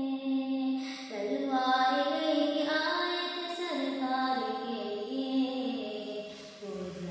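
A woman's voice singing a devotional naat unaccompanied, in long held notes that step up and down in pitch.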